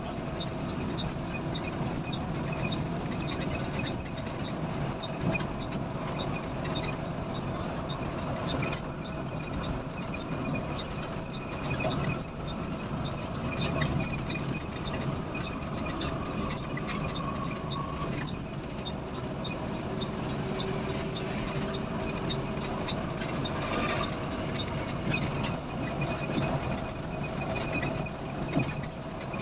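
Engine and road noise inside an intercity coach's cabin as it drives at speed on a highway, with frequent light clicks and rattles throughout.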